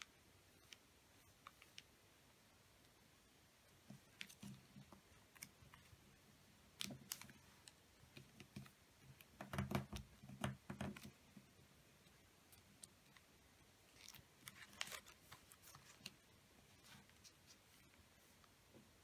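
Square sheet of origami paper being folded and creased by hand: faint, scattered rustles and crisp crackles as fingers press the folds flat, busiest about ten seconds in.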